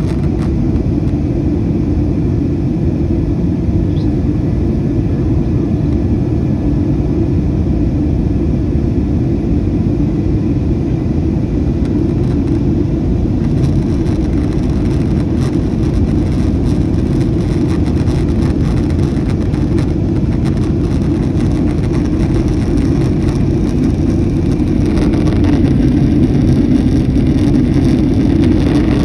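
Steady cabin roar inside a Boeing 737 airliner in flight: engine and airflow noise, heavy in the low end, with a faint thin whine over it. It grows a little louder near the end.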